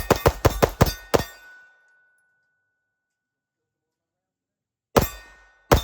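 Rapid pistol fire from a Prodigy 2011 pistol with a ported Island Barrel: a fast string of about seven shots that stops about a second in. After a stretch of dead silence, two more shots come near the end.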